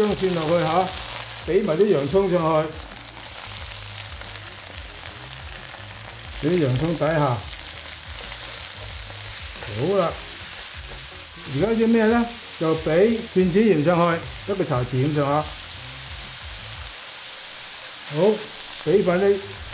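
Pork chops sizzling in oil in a stainless-steel frying pan, a steady hiss, while ginger, garlic and sliced onions are added and stirred around with tongs.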